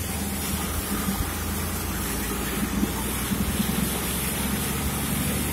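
Steady rushing noise of a fast-flowing, flood-swollen river and rain, over a low steady hum.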